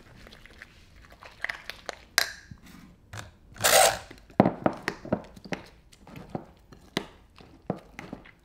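Kitchen utensils and containers being handled: a string of sharp clicks and knocks, with a short rustling scrape about three and a half seconds in.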